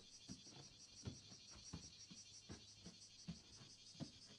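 Near silence: a faint, steady high chirring of insects, with soft, irregular footsteps thudding on the floor.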